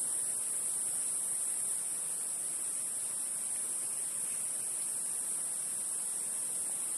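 A steady, high-pitched hiss with no distinct knocks, calls or other events.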